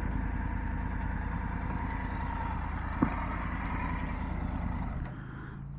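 Triumph Tiger 900's three-cylinder engine idling steadily, with one short click about three seconds in; near the end the low rumble drops and a quieter, steadier hum is left.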